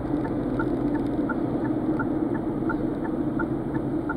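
Car's turn-signal indicator ticking in an even two-tone tick-tock, about three clicks a second, over a steady engine and road hum inside the cabin.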